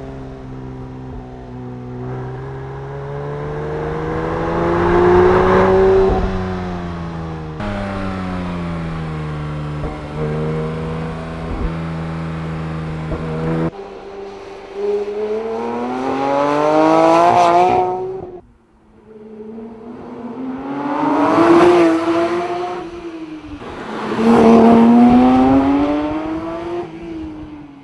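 Porsche 911 GT3 S/C's 4.0-litre six-cylinder engine heard through its exhaust, revved up and down several times. Its pitch climbs steeply to a peak and falls back each time, with a steadier stretch between the first and second rises.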